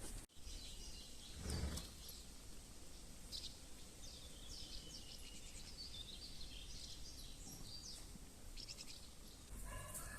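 Birds chirping: many short, high calls scattered throughout, faint, with a brief low thud about a second and a half in.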